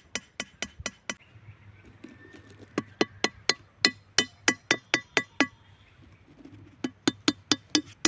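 A steel machete blade hammering small wooden pegs through cardboard into the soil: quick sharp taps, about four a second, in three runs with short pauses between.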